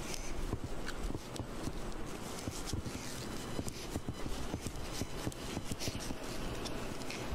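Footsteps on asphalt, an irregular run of light slaps and scuffs from sandals, over a steady low rumble.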